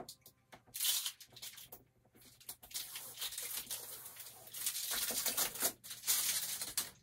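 Adhesive packing tape being peeled off the top of a wall-mounted TV. There is one short rip about a second in, then a longer run of ripping pulls that surge and fade until near the end.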